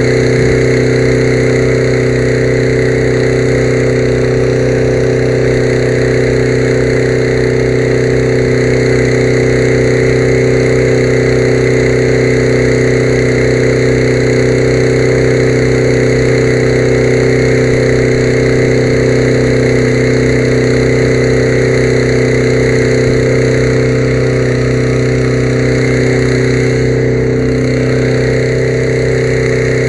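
An engine running steadily at a constant speed: a loud, even drone that holds the same pitch throughout.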